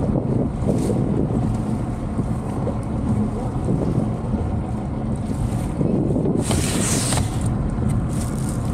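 Wind buffeting the microphone over choppy water on an open boat, a steady rumble, with a short bright hiss about two-thirds of the way through.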